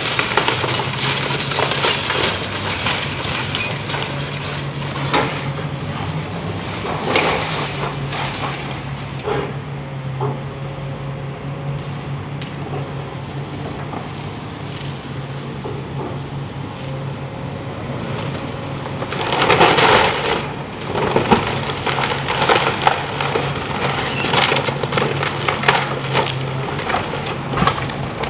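Excavator tearing apart a wooden house's roof and walls: bursts of wood cracking, splintering and debris crashing. The loudest bursts come about two-thirds of the way through, after a quieter spell in the middle, over the steady drone of the excavator's engine.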